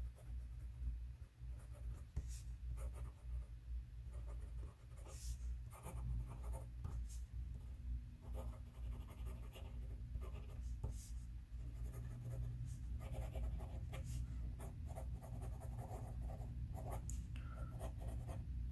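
Diplomat Magnum's steel Jowo fountain pen nib scratching lightly across smooth Clairefontaine paper while cursive is written: a run of faint short pen strokes over a low steady hum.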